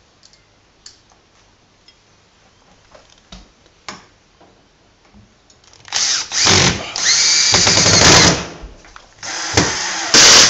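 Cordless drill driving a long screw through a metal blind bracket into a timber door architrave, in two runs: one of about two and a half seconds starting about six seconds in, and a shorter one near the end. Before that there are only faint clicks of handling.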